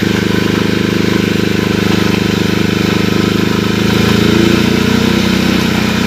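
Agricultural fertilizer-spreading drone's rotors running with a steady multi-tone hum and a fast pulsing beat, rising a little in pitch about four seconds in.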